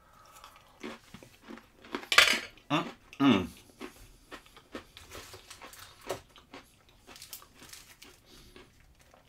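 A table knife scraping pâté from a small metal tin and spreading it, with light clinks and scrapes of metal, one sharper scrape about two seconds in. Two short hums of a voice around three seconds in.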